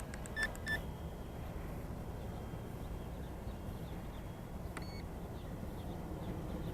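Two short electronic beeps about half a second in, and a fainter one near five seconds, over a steady low outdoor rumble of wind.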